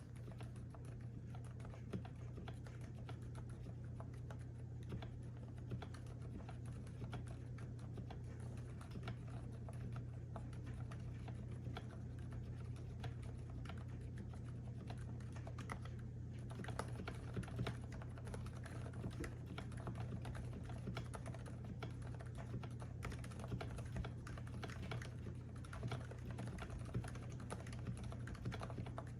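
Continuous typing on a custom mechanical keyboard, a steady run of keystrokes with a velvety sound.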